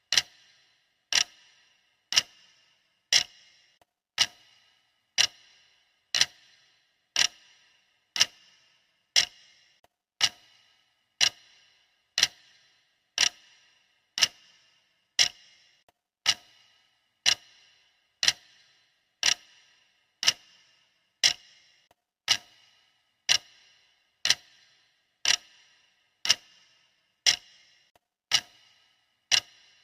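Steady clock-style ticking, one sharp tick about every second, each with a short ringing tail.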